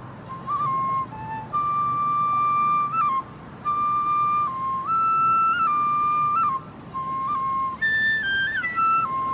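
Japanese transverse bamboo flute (fue) playing a slow solo melody: long held high notes stepping between pitches, with quick grace-note flicks and short breaths between phrases.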